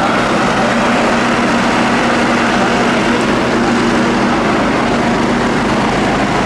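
Heavy truck engine idling steadily, a low hum with a constant rumble.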